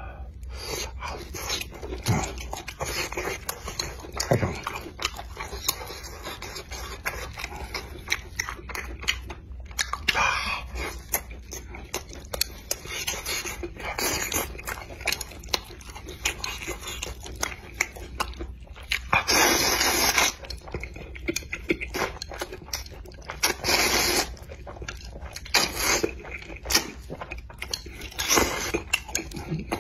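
Close-miked eating of spicy fire noodles and Yanbian-style spicy squid: wet chewing and lip smacks, with several longer noodle slurps, the loudest about nineteen seconds in.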